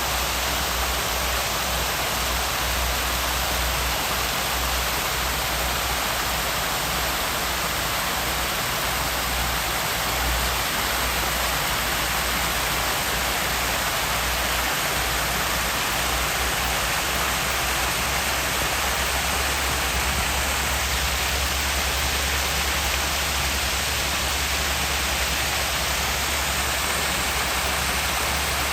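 Steady, even rushing noise with an uneven low rumble underneath.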